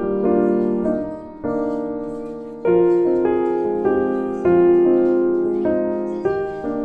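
Background music: a gentle piano tune with notes changing about every half second.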